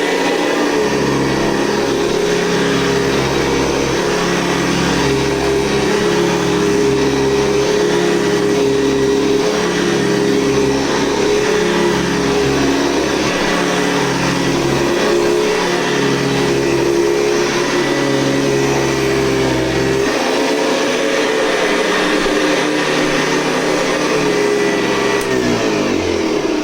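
1992 Hoover Convertible U4119 upright vacuum cleaner running steadily, its motor and fan giving a loud, steady whine over a low hum. The low hum drops away about twenty seconds in while the whine runs on.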